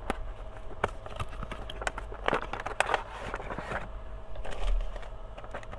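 Cardboard box and plastic wrapping being opened and handled: rustling and crinkling with scattered clicks and taps, loudest about two to three seconds in.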